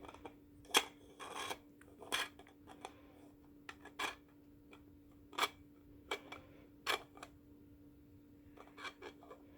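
3D-printed plastic maze puzzle box being worked open, its lid clicking and knocking in the maze grooves in about a dozen irregular sharp clicks. A faint steady hum runs underneath.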